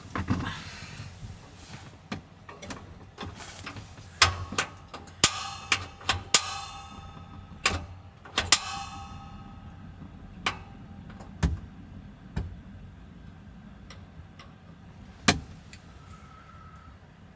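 Irregular sharp knocks and clinks of things being handled and set down, a dozen or so, several with a brief ringing tone after them, over a faint steady background hiss.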